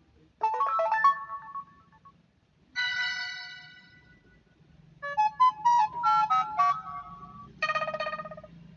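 Samsung Galaxy Pocket stock phone tones: about four short electronic jingles played one after another with pauses between them. A quick rising run of notes comes first, then a chord that fades out, then a short run of notes, and a buzzy, pulsing chord near the end.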